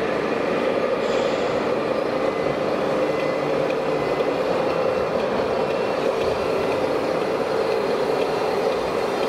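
Steady mechanical running noise from a 1:16 scale radio-controlled MAN heavy-haul truck driving slowly, heard over the continuous din of a busy exhibition hall. It stays even throughout, with no starts or stops.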